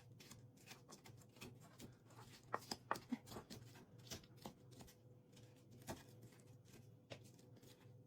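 Faint, irregular taps and clicks of kitchen utensils at work on food, with a few sharper knocks about two and a half to three seconds in, over a low steady hum.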